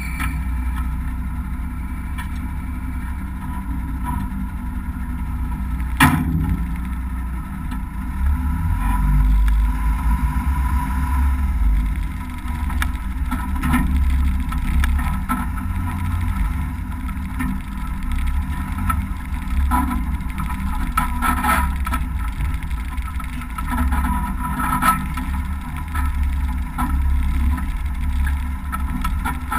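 Cummins turbo-diesel six of an M923A2 5-ton 6x6 military truck running, first at idle and then pulling the truck across dirt, its note rising and falling with the throttle. There is a single sharp bang about six seconds in.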